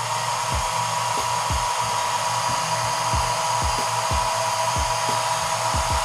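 Small 900 W foldable travel hair dryer running steadily on the first, lower of its two settings: an even rush of air with a thin whine from the fan motor.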